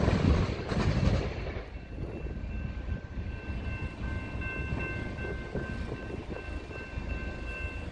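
Freight train cars rolling along the rails, a low wheel rumble that drops off after the first second. From about two seconds in, a faint steady high-pitched whine sits over it.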